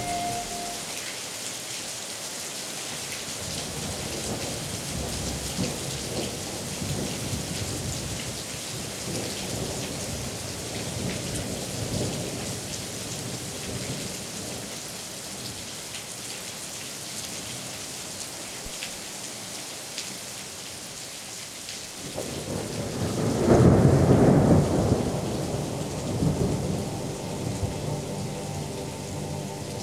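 Steady rain, with a roll of thunder that swells up and dies away about three quarters of the way through.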